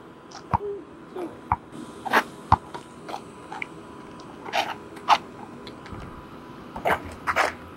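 Basketball play on an outdoor asphalt court: the ball bouncing and sneakers scuffing, heard as separate short sharp knocks about a second apart.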